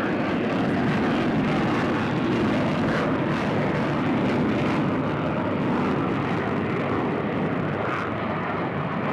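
Steady, loud engine roar with wind and water noise, swelling slightly over the first few seconds.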